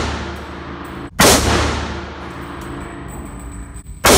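Chinese Type 56 SKS semi-automatic rifle in 7.62×39 firing two shots about three seconds apart, the second near the end. Each shot rings on and dies away slowly in the reverberant indoor range, over a steady low hum.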